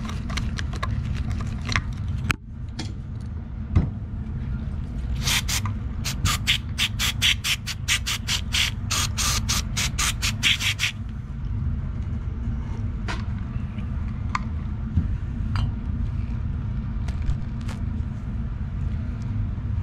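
Screwdriver scraping inside a Yamaha XJ650 carburetor body, with a run of quick strokes at about four a second through the middle, and clicks of the metal carb bank being handled. A steady low hum runs underneath.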